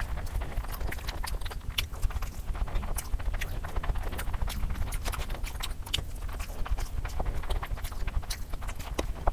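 Close-miked wet chewing and slurping of a mouthful of spicy Korean instant noodles: a dense run of short smacking clicks over a low rumble.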